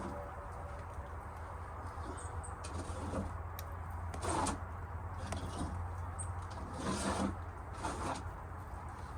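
Hens making a few short, soft calls, about four seconds in and again near seven and eight seconds, over a steady low rumble of wind on the microphone.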